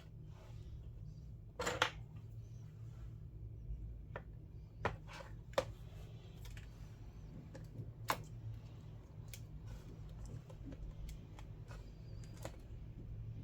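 Scattered small clicks and taps of tools and parts being handled on an iPad under repair, about a dozen in all, the loudest a brief crackle near two seconds in, over a steady low hum.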